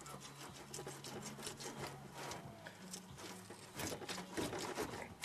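Quick rasping scrapes of a blade working against a common carp's thick scales, several strokes a second, growing louder near the end.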